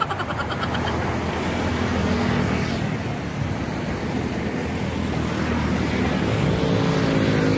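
Road traffic passing on a highway: a steady rush of car and truck engines and tyres, with a single engine's hum standing out near the end.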